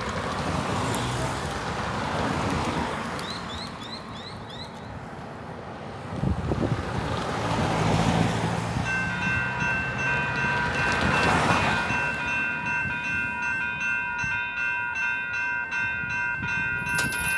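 Cars driving over a railway level crossing, their tyre and engine noise swelling as each one passes. About halfway through, the crossing's warning bells start ringing steadily, signalling that a train is approaching and the boom gates are about to lower. There is a sharp click near the end.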